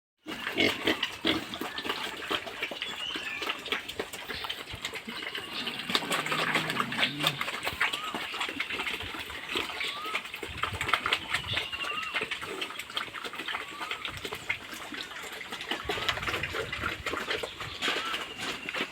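Pigs in a pen grunting amid constant clattering and splashing noises, with short rising chirps repeating every second or two.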